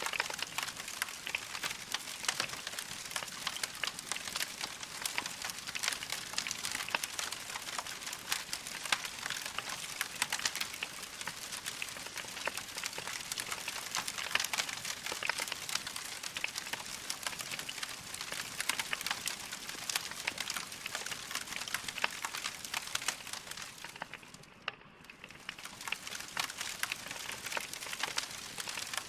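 Wood fire crackling: a dense, steady run of small pops and snaps over a soft hiss. It dips briefly near the end, then carries on.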